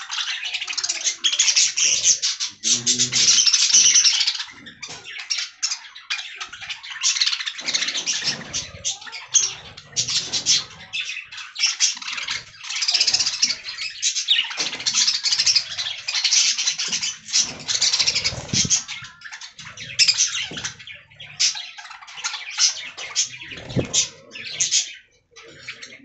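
A flock of budgerigars chattering and warbling together, many overlapping high, quick calls with no pause.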